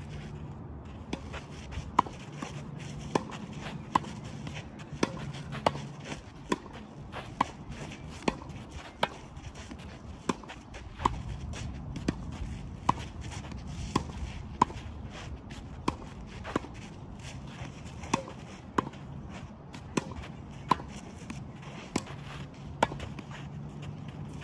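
Tennis balls struck by racquets in a fast volley exchange at the net: a sharp pop about once a second, some strikes louder than others, over a steady low background hum.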